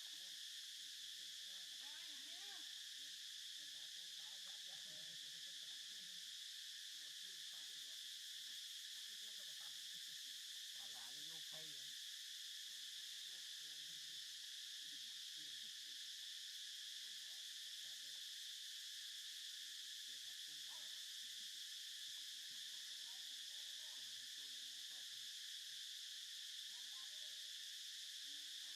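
A steady, continuous chorus of insects trilling in the background, an unbroken high-pitched drone with faint distant voices underneath.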